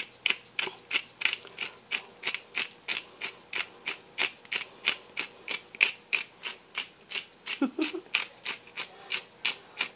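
Hand pepper grinder being twisted over a pot, its mill clicking in an even ratcheting rhythm of about three clicks a second, then stopping just before the end.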